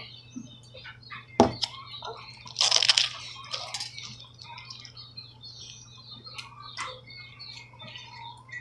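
Slime being squeezed and handled, giving soft wet squishes and small clicks, with one sharp knock about a second and a half in and a short hissing burst near three seconds.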